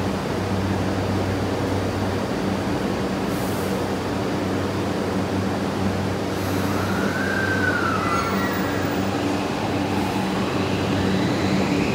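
Railway station platform ambience: a steady rushing noise with a low electrical hum. About seven seconds in, a brief whine rises and then falls.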